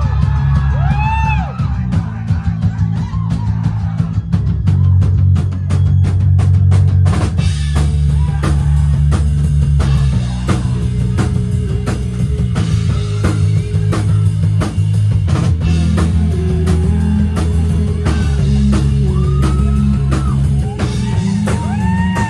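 Live rock band playing an instrumental stretch: driving drum kit, heavy bass and distorted guitar, with guitar tones swelling and bending at the start and again near the end.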